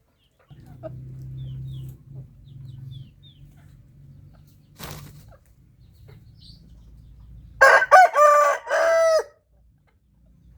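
A rooster crows once, loudly, about three-quarters of the way in: a call of about a second and a half in several falling segments. Before it there is a low steady background hum.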